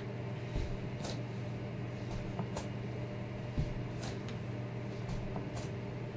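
Soft swishes and rustles of clothing and ankle-weight straps as a leg is lifted out to the side in standing hip abductions, with a dull thud of the foot on a floor mat twice, about three seconds apart. A steady low hum runs underneath.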